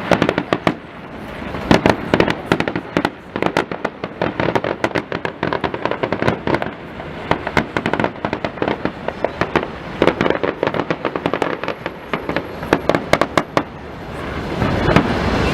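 Fireworks salute: a rapid, dense run of bangs and crackling reports. It swells louder about a second before the end.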